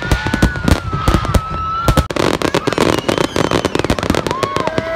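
Aerial fireworks bursting in quick succession: rapid bangs and dense crackling, with a long, slowly falling whistle over them in the first two seconds.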